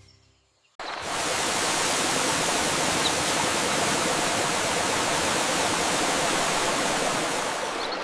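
A steady rushing hiss, starting suddenly about a second in after a brief silence and holding even throughout.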